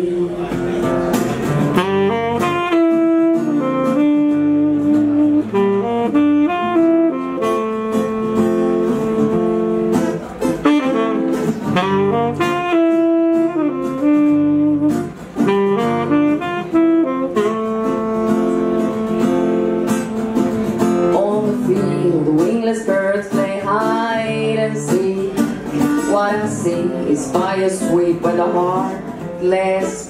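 Live saxophone and acoustic guitar playing an instrumental passage, the saxophone carrying a melody of held notes over the guitar's accompaniment.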